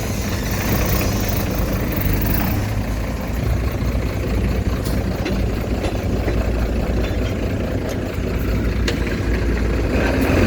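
Heavy diesel earthmoving machinery running steadily, with a few sharp metallic clanks.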